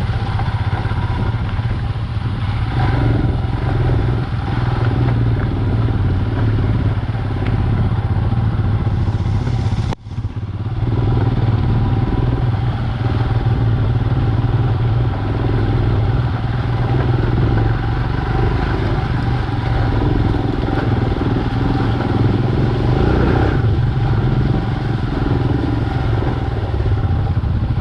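Royal Enfield Himalayan BS6's 411 cc single-cylinder engine running steadily under load while climbing a rough off-road track, with one brief dip in sound about ten seconds in.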